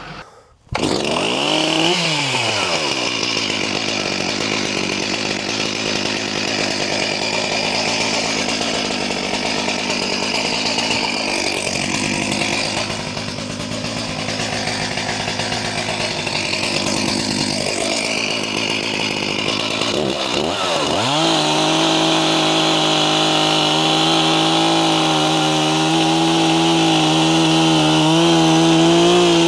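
Chainsaw running. The engine drops in pitch about two seconds in, runs unevenly for a long stretch, then revs up about twenty seconds in and holds a high, steady pitch.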